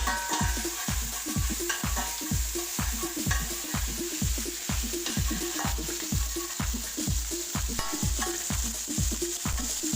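Background music with a steady deep beat of about two thuds a second, over the steady sizzle of onion, garlic and bay leaves frying in oil in a pot.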